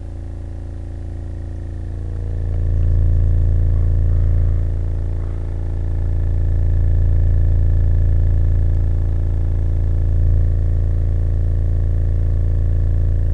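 American Bass XFL 12-inch subwoofer playing a 28 Hz test tone free air, out of its box: a steady deep drone with a buzzy stack of overtones. It swells louder about two seconds in and dips briefly around five seconds.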